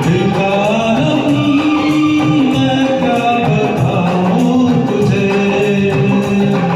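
A Hindi film song performed karaoke-style: a man singing over a recorded backing track, holding long notes that slide in pitch.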